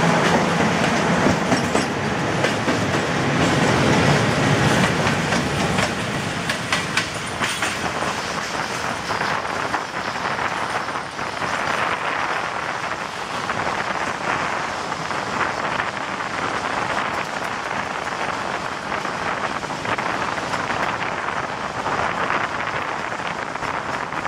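Train running at speed, heard from aboard a moving passenger coach: a steady rumble of wheels on rail with clickety-clack over the rail joints. The sound is louder for the first five seconds or so, while a freight train runs close alongside on the next track.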